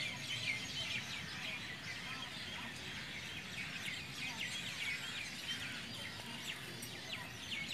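Many small birds chirping continuously in quick, high, overlapping chirps, over a faint steady low hum.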